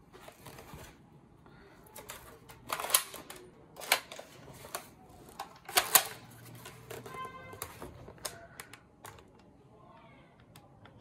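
Black plastic toy sniper rifle being handled and worked: an uneven run of sharp plastic clicks and clacks, the loudest about three and six seconds in, with a brief squeak a little after the middle.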